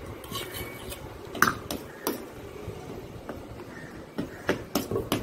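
Steel spatula knocking and scraping on a stainless steel plate as it presses and flattens a soft sweet mixture: scattered sharp clinks, with a quicker run of them near the end.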